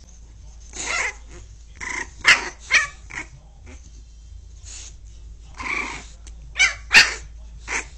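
A young puppy gives short, high barks and yips in irregular bursts, about ten of them, the loudest near the middle and near the end. This is a puppy's play-aggression, barking angrily at the adult dog.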